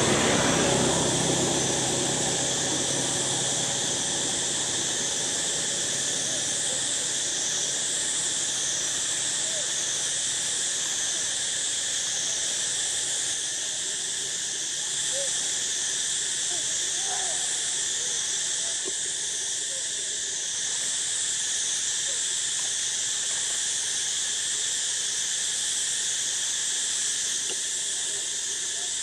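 Steady high-pitched insect chorus with a slow pulsing rise and fall. A passing engine fades away in the first second or two.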